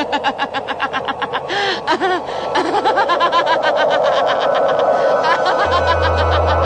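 A voice laughing in rapid, even pulses. A low steady drone comes in near the end.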